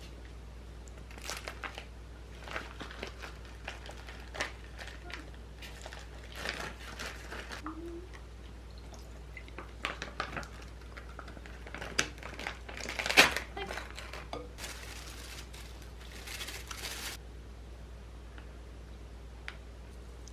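Kitchen handling: scattered clinks and knocks of dishes and utensils with crinkling, one loud knock about two-thirds of the way through, followed shortly by a hiss lasting a couple of seconds.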